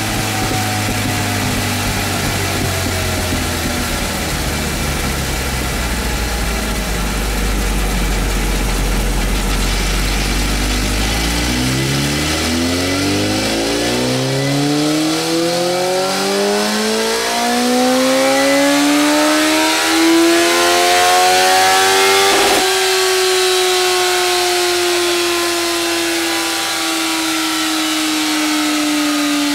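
Honda Fireblade's inline-four engine on a rolling-road dyno: it runs steadily at low revs for about twelve seconds, then climbs smoothly through the rev range in a full-throttle power run. About two-thirds of the way through, it peaks with a sharp click as the throttle is shut, and the revs and rollers wind down slowly.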